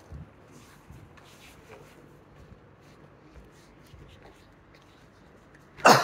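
Quiet street ambience with soft footsteps on sidewalk paving while walking. Just before the end, a sudden loud call cuts in.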